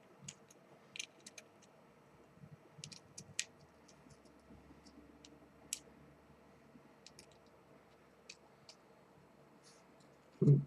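Faint, scattered small clicks and taps as an electronic switch is handled and fitted onto a small circuit board. A brief low voice sound comes near the end.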